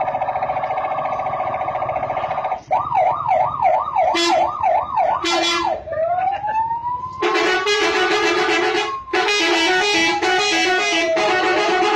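Indonesian 'telolet' multi-tone bus horn sounding a steady chord, then switching to a fast warbling siren-like wail and a slow rising and falling siren tone. From about seven seconds in, guitar music plays over it.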